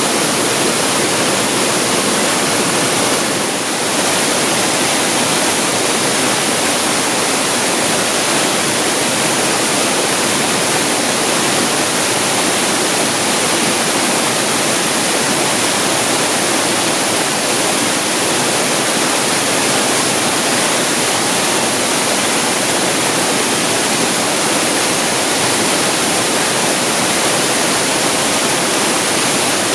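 Waterfall pouring out of a cave mouth, a loud, steady rushing of falling water.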